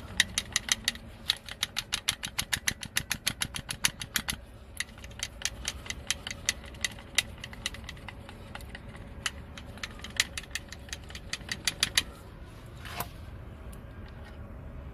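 Rapid mechanical clicking, about six clicks a second and then sparser and uneven for the last few seconds, as the reefer unit's fuel primer pump is worked by hand to bleed air from the fuel line after it ran dry.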